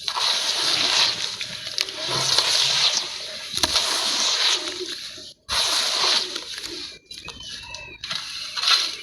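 Sand-cement cakes crumbling and splashing in water: grainy crunching with sloshing. The sound cuts out briefly about five and a half seconds in, then resumes.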